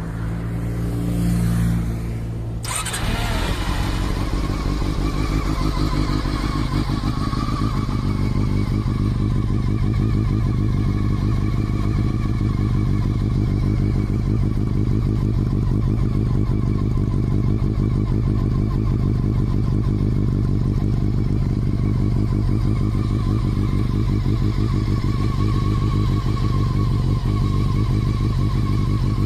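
Honda CBR400RR (NC23) inline-four idling steadily through an OVER RACING slip-on silencer, with a cut to a new recording a few seconds in.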